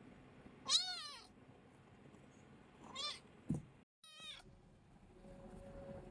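Grey tabby kitten meowing three times, short high mews that rise and fall in pitch, the first the loudest. A soft low thump comes just before the third mew.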